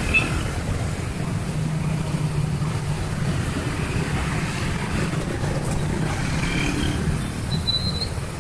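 Steady low rumble of road traffic, motor vehicle engines running.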